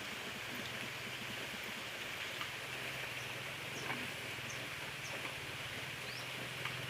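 Steady rain falling, an even hiss, with a low steady hum underneath and a few faint high chirps.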